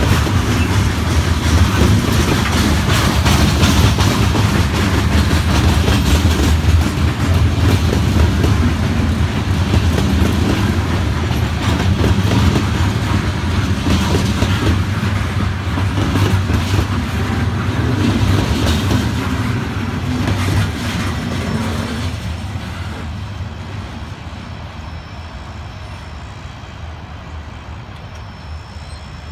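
Freight train's coal hopper cars rolling past at close range: a steady rumble of steel wheels on rail with repeated knocks as wheels cross rail joints. From about three-quarters of the way through, the sound fades steadily as the train moves away.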